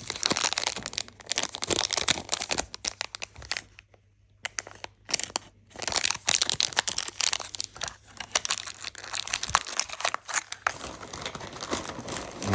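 Plastic packaging crinkling and rustling as small bags of soft fishing lures are handled, with two short pauses about four and five seconds in.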